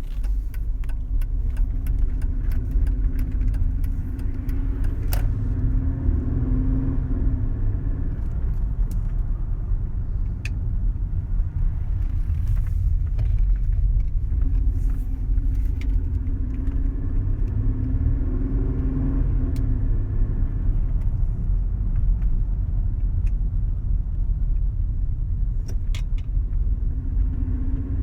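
Mercedes-Benz CLK 320's V6 engine running with a low, steady grumbling, the pitch rising and falling slightly now and then. The grumble comes from misfiring coil packs and mis-gapped spark plugs.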